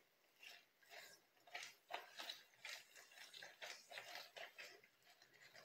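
Faint, irregular wet rubbing and squishing, a few strokes a second, as gloved hands work thick henna straightening paste through strands of hair.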